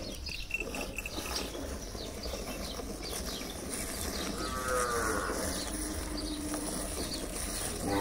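Hand-milking a Gir cow: rhythmic squirts of milk hitting the milk in a steel pail. A cow moos briefly about halfway through, and another moo begins at the very end.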